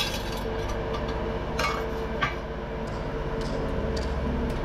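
Forge fire burning hard, a steady rumble and hum with a few sharp crackles from the burning fuel.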